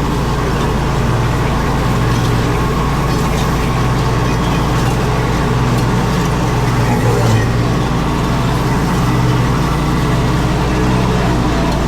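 Zero-turn riding mower's engine running steadily under load while mowing, a constant low hum with the deck's noise over it.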